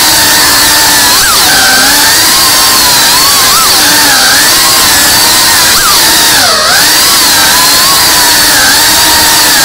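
Cinewhoop FPV drone's motors and ducted propellers whining, the pitch wavering up and down with the throttle over a steady hiss of prop wash. About six and a half seconds in the pitch dips sharply, then climbs back.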